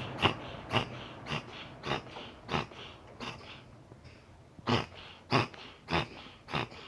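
A cat sneezing over and over in a fit, about ten short sharp sneezes at roughly two a second, with a brief pause midway.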